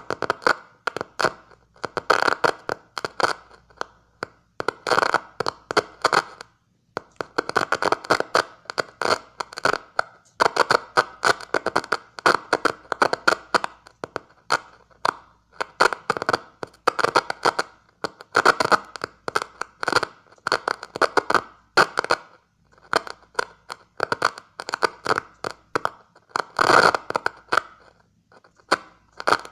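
Crackling bursts of rapid clicks, keyed on and off in short irregular groups with brief gaps, from a homemade Morse sender whose switch is two screwdrivers touched together to key a magnetic amplifier.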